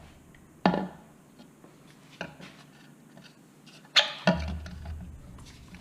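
Pressure washer wand and foam cannon being handled: a sharp knock under a second in, a faint tap around two seconds, then two sharp clacks close together about four seconds in.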